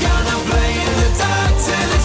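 Pop music with a steady drum beat.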